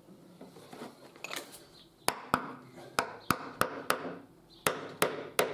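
Claw hammer knocking glued wooden wedges into the housing of a staircase wall string under a tread: about nine sharp strikes, starting about two seconds in, in quick groups. Before them, soft brushing and handling as glue is spread.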